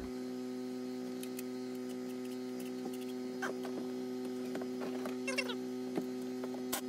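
A steady electrical hum, with scattered light clicks and taps, a few short squeaks about five seconds in, and a sharp click near the end.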